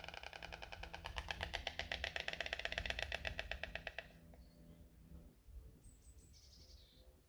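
White stork bill-clattering: a fast, even rattle of bill strokes that stops about four seconds in. Faint small-bird chirps follow near the end.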